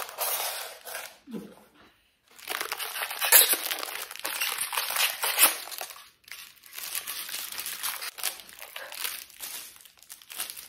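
Clear plastic wrap crinkling and rustling as a set of bangles wrapped in it is handled and pulled from its styrofoam packing. It comes in irregular bursts, with brief pauses about two and six seconds in.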